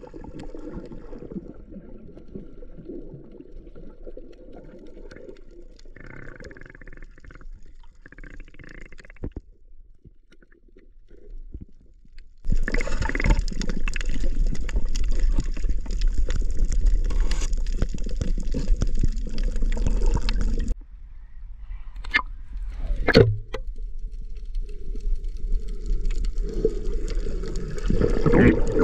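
Sea water sloshing and gurgling around a handheld camera during a freedive, the sound changing abruptly about twelve and twenty seconds in, with a couple of sharp knocks a little after the second change.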